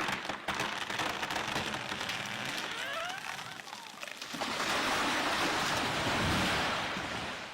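A felled tree going over: wood cracking and creaking, then a rising rush of branches sweeping through foliage that builds to a heavy crash about six seconds in.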